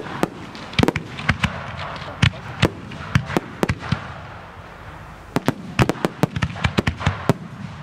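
Fireworks display: aerial shells bursting in quick, uneven succession as sharp bangs, with a denser run of bangs in the second half.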